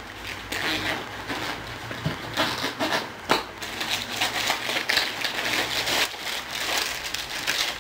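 Rummaging through a backpack: plastic bags crinkling and rustling, with scattered sharp clicks and knocks as items are shifted.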